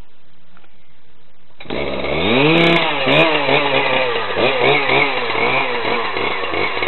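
Husqvarna 3120XP's big 120 cc two-stroke chainsaw engine bursts into running about a second and a half in. It revs up sharply, then runs with the revs rising and falling as the throttle is worked.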